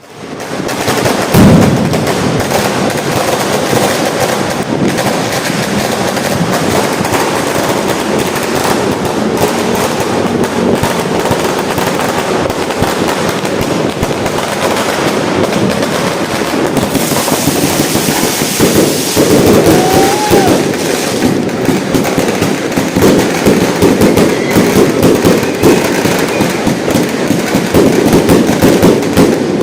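GLK Fireworks 188-shot Armageddon cake firing in a loud, continuous barrage of shots and crackle, the loudest bang about a second and a half in. A brief whistling glide rises through the barrage about two-thirds of the way through.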